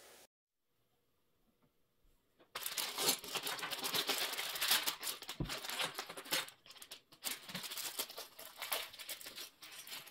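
Clear plastic parts bag crinkling as it is handled and opened, with small LEGO pieces clattering out onto a wooden table. It starts after about two and a half seconds of silence and goes on in a dense, uneven run of crackles.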